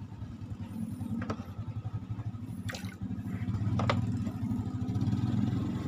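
A small engine running steadily with a low rapid pulsing, growing louder from about halfway through, with a few sharp clicks over it.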